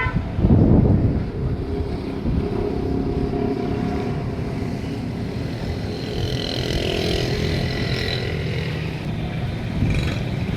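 Motor vehicle engines running: a steady engine noise, with a louder low rumble about half a second in.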